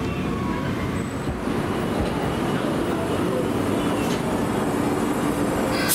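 Hiroshima streetcar running along the street-level track into a tram stop, a steady rumble of wheels and motor.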